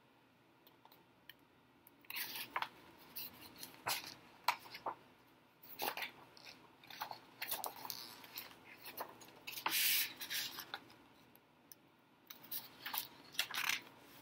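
Handling noise from a hardcover picture book being lowered and shuffled in the hands: scattered short paper rustles and light taps and clicks, with a longer rustle about ten seconds in.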